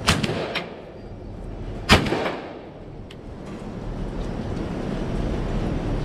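Two shotgun shots about two seconds apart, the second louder, each trailing off in a short echo.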